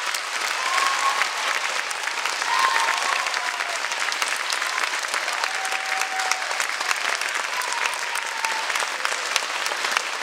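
Audience applauding, a dense and steady clapping.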